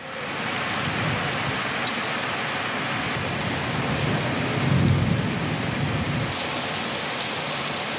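Heavy rain pouring down in a steady, dense hiss. A low rumble of thunder swells and fades about halfway through.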